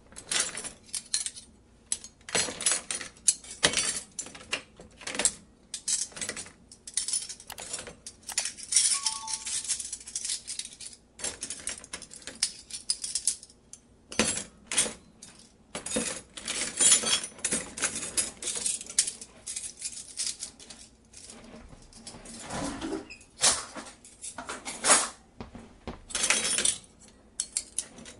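Miniature toy kitchen pieces being handled: irregular small clicks and clinks, with a few longer stretches of rustling or scraping.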